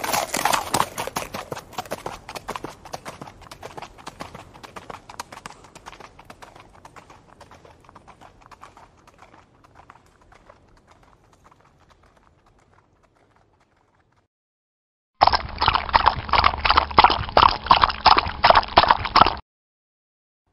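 Horse hooves clip-clopping, fading steadily away over about thirteen seconds. After a short silence, a louder run of rapid hoofbeats lasts about four seconds and cuts off suddenly.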